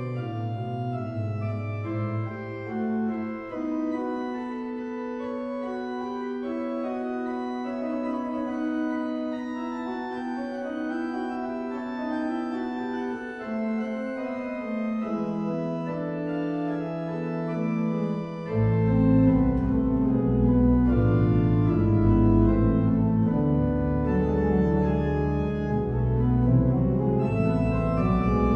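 Organ music of slow, sustained chords. About two-thirds of the way in, deep bass notes enter and the music grows louder.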